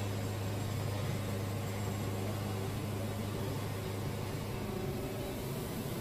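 Wood-Mizer LT70 band sawmill running steadily with a strong low hum as its head feeds the blade through a white oak log. The cut is going slowly because the band blade is dull.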